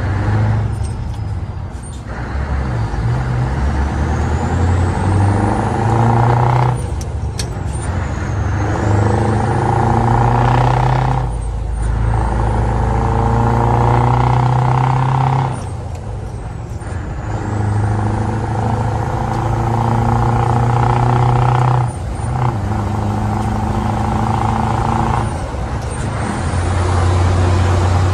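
Scania 143 450's 14-litre V8 diesel heard from inside the cab, pulling through the gears. The engine note climbs in each gear and drops at each of about six gear changes, with a high whistle that rises with the revs.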